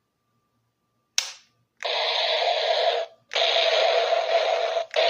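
Max Action repeater rifle toy gun: a single click, then its electronic gunshot sound effects from a small built-in speaker, three noisy bursts of about a second and a half each, the last starting near the end.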